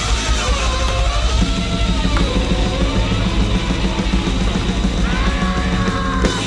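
Grindnoise/noisecore music: a dense, loud wall of distorted noise with drums and guitar, and pitched tones that waver up and down above it.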